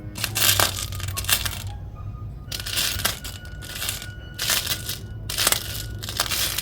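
Small metal charms clinking and rattling against each other as a hand rummages through a pile of them, in repeated short bursts.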